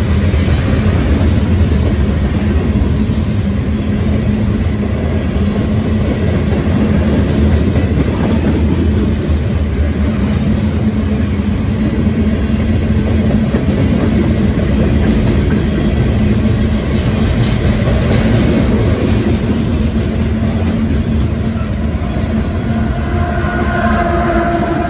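Freight train of covered hopper cars rolling past close by: a steady rumble and clatter of steel wheels on the rails. Near the end a mid-train CSX diesel locomotive comes by, and a steady engine tone joins the rumble.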